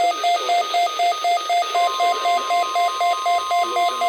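A weather radio receiver beeping its alert about four times a second. About two seconds in, the steady NOAA Weather Radio warning alarm tone (1050 Hz) comes on and holds, as sent during the required weekly test.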